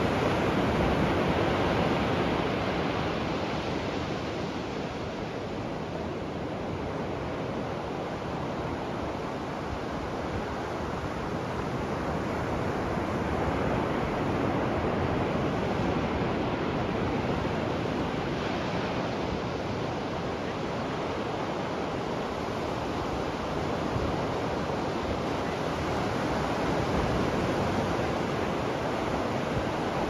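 Ocean surf breaking and washing up on a beach: a steady rush of water that swells and eases slowly every several seconds.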